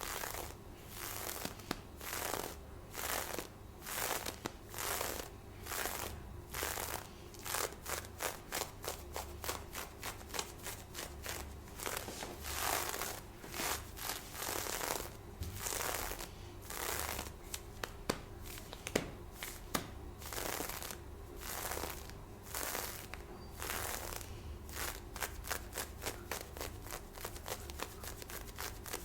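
Lace fishnet stockings being scratched and rubbed close to a binaural microphone, in a run of short scratchy strokes about two a second that come faster in the middle.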